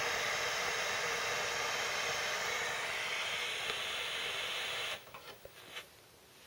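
Television static: a steady white-noise hiss that cuts off suddenly about five seconds in as the set goes off, followed by a few faint clicks.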